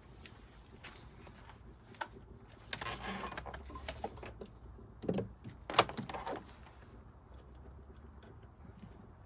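Handling noises from work on wiring: scattered light clicks and knocks with a stretch of rustling, the sharpest knock about six seconds in.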